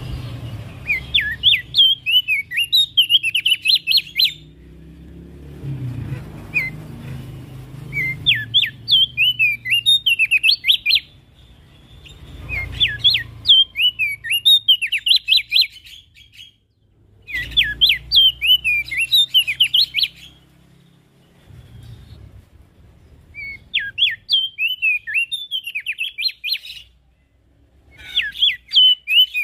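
Opior jambul (Javan grey-throated white-eye) singing: phrases of rapid, high twittering notes about three seconds long, repeated six times with short pauses between, and a faint low rumble in the gaps.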